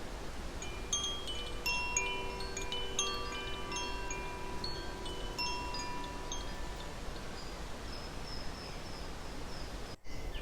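Wind chimes ringing, many notes of different pitches struck and ringing on, dying away after about seven seconds, over a steady low hiss.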